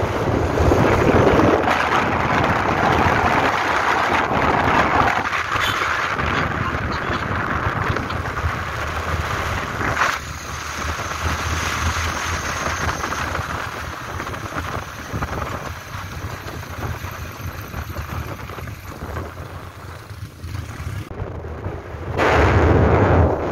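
Wind rushing over the microphone on a moving motorcycle, with the motorcycle running underneath. The rush slowly eases off, then gusts loud again near the end.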